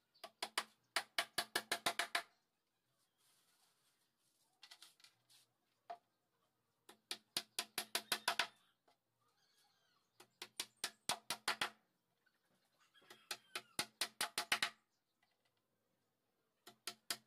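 Hammer driving small nails through a plywood panel into a speaker box: quick runs of light strikes, about eight a second, in repeated bursts separated by short pauses.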